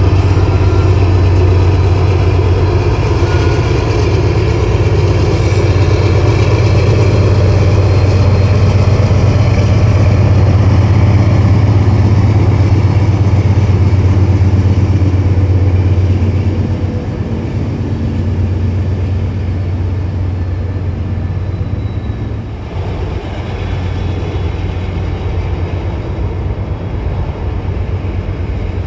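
Diesel freight locomotive engine running steadily with a strong low hum, easing down in level a little past halfway.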